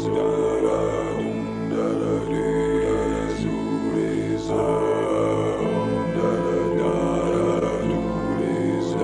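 Metal singing bowls ringing together in sustained, overlapping tones over a low drone, with a fresh strike now and then.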